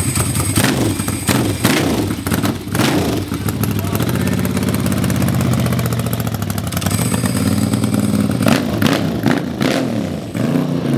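Ducati 900SS cafe racer's V-twin engine running through a nasty-sounding exhaust as the bike pulls away and rides off. There are sharp revs in the first few seconds, a steadier engine note through the middle, and more revving near the end.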